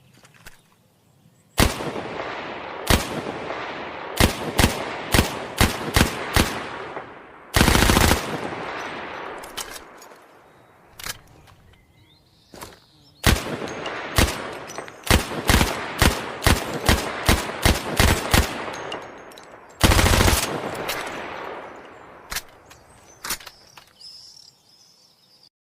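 Thompson submachine gun firing. There are single shots a fraction of a second to a second apart, a short automatic burst about 8 s in, and another series of shots followed by a second short burst about 20 s in. Each shot has a decaying echo tail, and quieter clicks fall in the gaps around 11–13 s and near the end.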